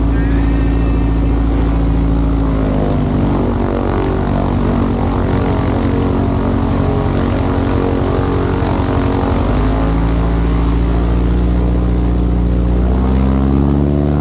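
1954 Cessna 170B's piston engine and propeller running steadily; the engine note dips about three seconds in, rises again about ten seconds in, and climbs once more near the end.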